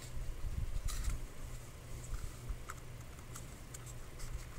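Kydex holster shell being handled by hand: a few scattered light plastic clicks and taps over low handling rumble.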